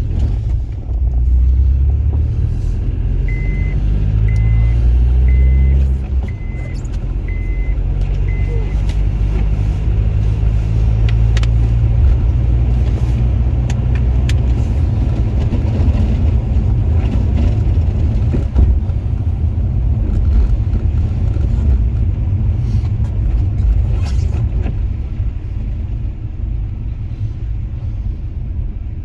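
Honda Accord driving: low engine and road rumble that climbs in pitch in a few steps during the first seconds, as it gathers speed through the gears. Six short, evenly spaced electronic beeps sound a few seconds in, then the car runs on with a steady rumble.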